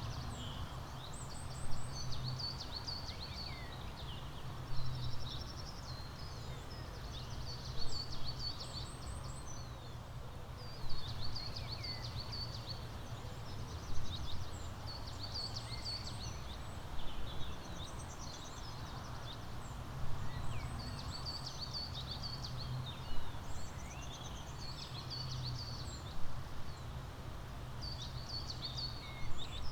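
Songbirds chirping, a short song phrase repeated about every three seconds, over a steady low rumble of background noise.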